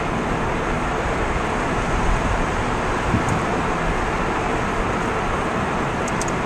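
Steady road noise of a car driving along a city street: tyre and engine rumble with an even hiss.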